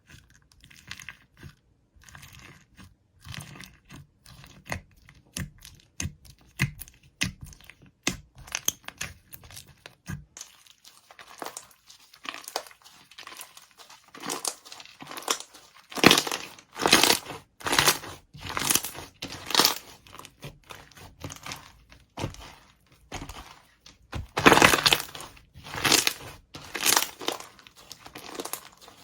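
Slime mixed with Perler beads being squeezed and poked by hand, making crunchy crackling and clicking sounds in irregular bursts. The strokes get louder from about halfway through, loudest around 16 and 25 seconds in.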